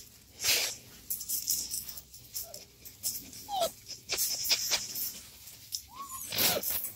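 Six-week-old Anatolian shepherd x mastiff puppies giving a few short, high whimpers, with bursts of straw rustling as they move about, the loudest about half a second in and near the end.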